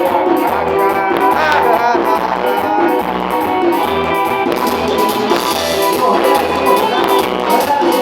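Band music with guitars, bass and drums on a steady beat.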